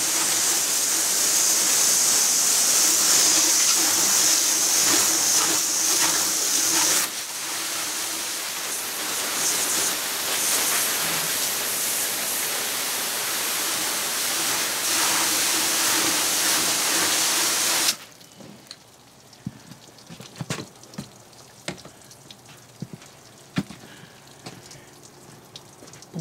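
Garden hose spray nozzle jetting water onto a boat console to rinse off cleaning soap: a loud, steady hiss of spray splashing, a little quieter after about seven seconds. It cuts off suddenly about two-thirds of the way through, leaving faint drips and small ticks.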